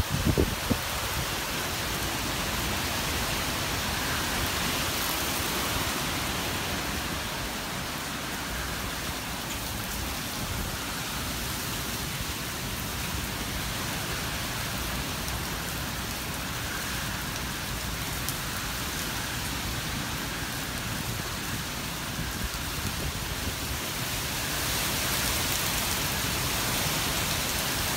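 Heavy hurricane rain falling steadily on grass and pavement, an even hiss that swells a little near the end.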